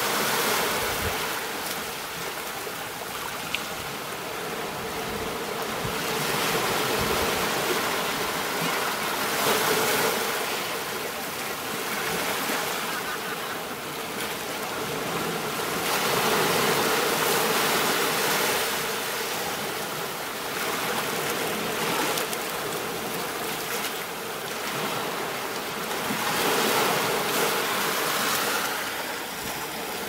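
Ocean surf washing onto a sandy beach: a steady rushing hiss that swells and eases as each wave comes in, every few seconds.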